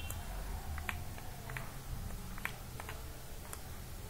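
A handful of light, irregularly spaced computer mouse clicks over a low steady hum.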